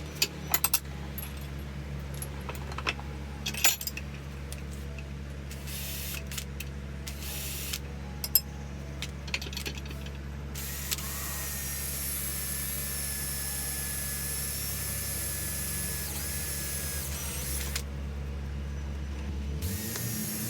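A few sharp, light metallic clinks of steel pieces being handled, mostly in the first second and a couple more later, over a steady low hum.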